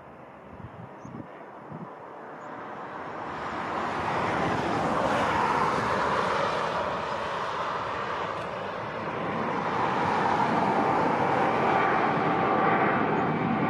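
Airbus A330-200's twin jet engines running at taxi power as the airliner rolls along the taxiway, a steady jet rumble with a whine. The noise swells about three seconds in and again around ten seconds in.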